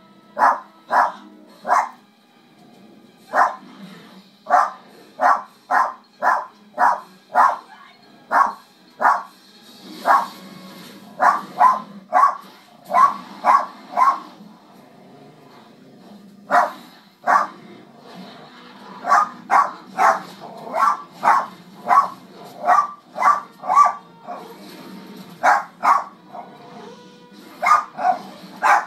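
Small dog barking at wolves on a television, in runs of quick, sharp barks about two a second, broken by short pauses. The film's soundtrack music plays quietly underneath.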